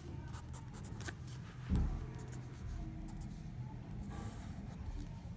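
Pencil writing on notebook paper: faint scratching strokes as figures are written, with one low thump about two seconds in.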